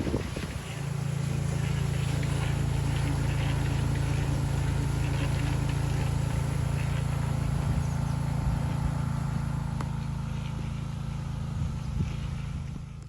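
A motor running steadily with a low, even hum, setting in about a second in and cutting off abruptly at the end.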